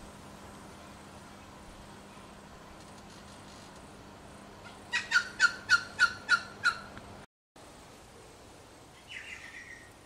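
Microwave oven running with a steady low hum. About five seconds in, a bird gives a rapid run of about eight falling notes, louder than the hum. After a brief dropout the hum is gone, and near the end the bird gives one short falling call.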